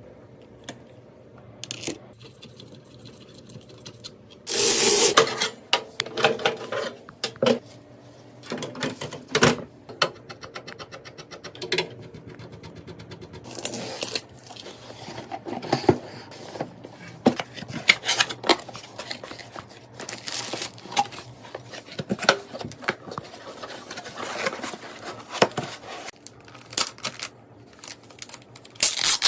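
Computer parts and packaging being handled: irregular clicks, knocks and rustling, with a louder crinkling burst about five seconds in and a run of rapid, even ticks a few seconds later.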